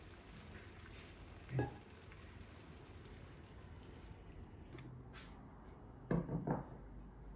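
Low steady sizzle from a pan of curry cooling off the heat, with light knocks of kitchen utensils against the frying pan: one about a second and a half in and two or three close together near the end.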